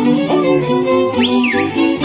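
Slovak folk string band playing an instrumental passage, fiddles leading over plucked and bowed accompaniment. A brief high note slides up and back down about a second in.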